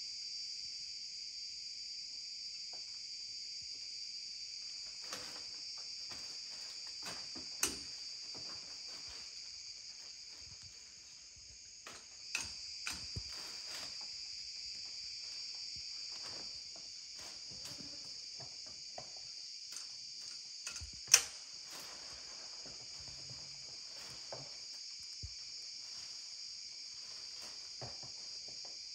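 Steady, high-pitched chorus of forest insects such as crickets, with scattered short knocks, snaps and rustles from someone climbing over rock and pushing through plants; the sharpest knock comes about two-thirds of the way through.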